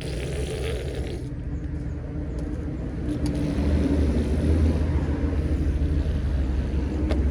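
Remote-control toy construction vehicle running: a steady low rumble with a motor hum that grows louder about three seconds in.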